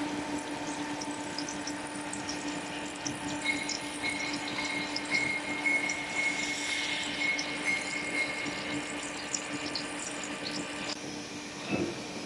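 Metal lathe turning a large steel cone-crusher shaft: a steady machine hum under the hiss of coolant spraying on the cut. A thin high whine comes in for a few seconds in the middle, with scattered faint ticks.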